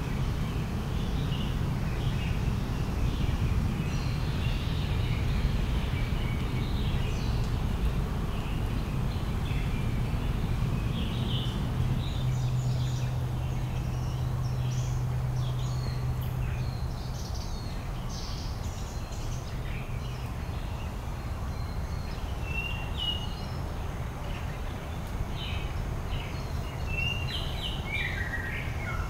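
Small birds chirping and calling in short high notes, one sliding downward near the end, over a steady low outdoor rumble. A low steady hum joins for a few seconds around the middle.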